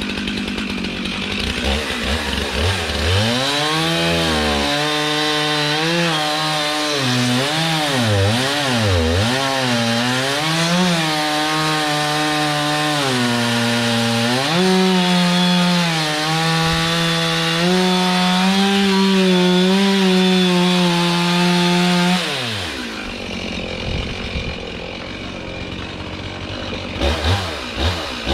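Two-stroke chainsaw revving up and down several times, then held at a steady high pitch for about eight seconds as it cuts through a magnolia trunk. It falls off sharply about 22 seconds in and revs again just before the end.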